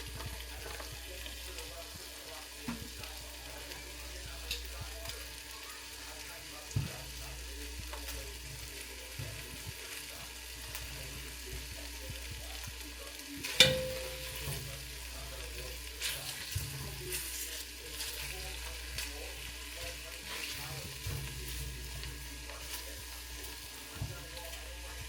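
Food sizzling and frying in a pan as it is stirred, with scattered small clicks of a utensil. About halfway through, one loud sharp clank rings out briefly.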